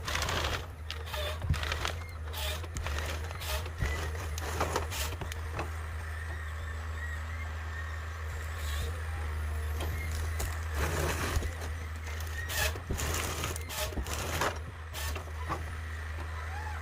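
Forestry harvester's diesel engine running steadily with a low drone, with repeated sharp cracks and knocks from the machine working timber.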